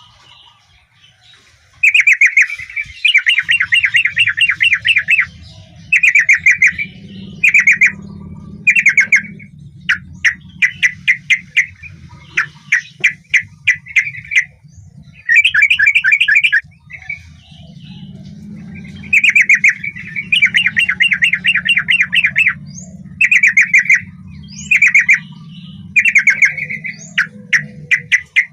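Yellow-vented bulbul (trucukan) singing: short phrases of rapid chattering notes, repeated again and again with brief gaps, starting about two seconds in. A faint steady low hum runs underneath from about three seconds in.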